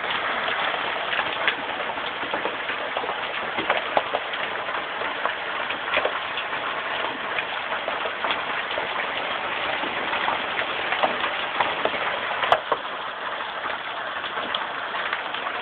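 Hail and heavy rain pelting down: a dense steady hiss dotted with many sharp strikes of hailstones hitting hard surfaces, one louder crack about twelve seconds in.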